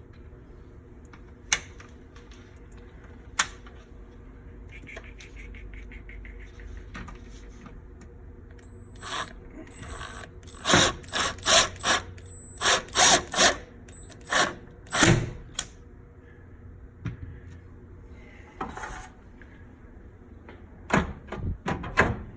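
Hand work on microwave parts during reassembly: a screw being driven back in and metal and plastic parts handled. Two sharp clicks, a short fast rattle about five seconds in, then a run of loud knocks and clicks from about ten to sixteen seconds in, with a few more near the end.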